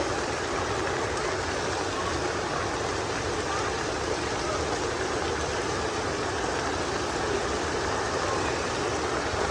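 Heavy rain falling steadily, a dense even rush of water with no let-up.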